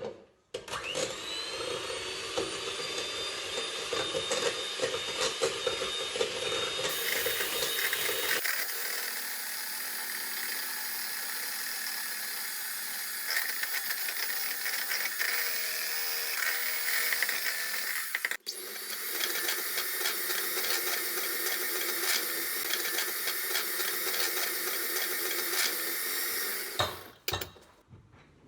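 Electric hand mixer whirring as it beats egg yolk with sugar. It spins up at the start, runs steadily with two abrupt shifts in tone, and stops about a second before the end.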